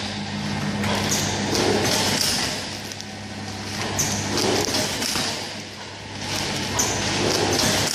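Soontrue vertical form-fill-seal packing machine with an auger powder filler running, bagging glutinous rice powder. A steady hum carries a repeating cycle, with a short high hiss about every three seconds as each bag is made.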